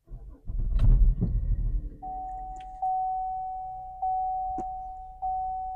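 Car's interior warning chime: a single-pitched ding repeating about every 1.2 s, each ding fading before the next. In the first two seconds, before the chime starts, there is a low rumble and a knock.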